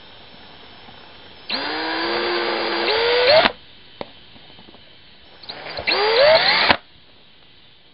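Power drill running in two bursts while boring a hole in a plastic trim panel, a longer one of about two seconds and a shorter one near the end, its whine rising in pitch each time before cutting off abruptly.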